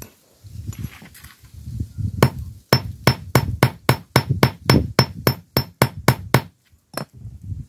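Claw hammer hammering a rusty metal doorknob rod against stone paving to straighten its crooked end. It strikes in a quick run of about fifteen sharp, ringing metal-on-metal blows over some four seconds, then gives one more blow near the end.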